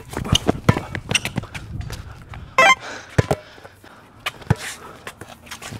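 A basketball being dribbled and bounced on an outdoor concrete court during one-on-one play, with sneakers shuffling on the concrete: a run of quick knocks, a short squeak about two and a half seconds in, then two louder single knocks a little over a second apart.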